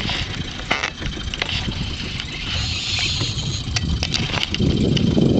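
Small boat's engine running low under water and wind noise, with a few sharp clicks and a short hiss from the spinning reel as a fish is reeled in on a bent rod. The low rumble grows louder near the end.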